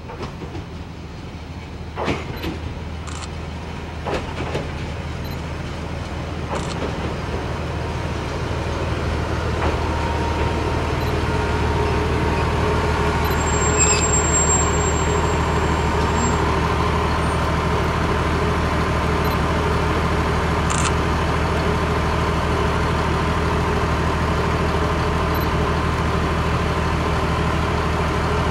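Nagara 300-type diesel railcar pulling into the station, its engine growing louder as it approaches, with a thin high squeal of about two seconds around the middle as it comes to a stop. It then idles steadily at the platform.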